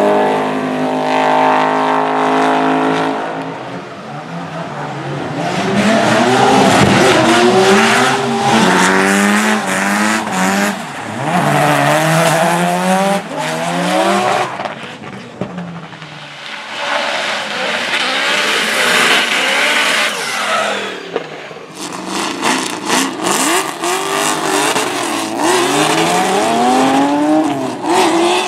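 Drift cars sliding past with engines revving hard, pitch sweeping up and down as the throttle is worked, and tyres squealing and hissing through the slides. Several passes go by, with the sound easing between them.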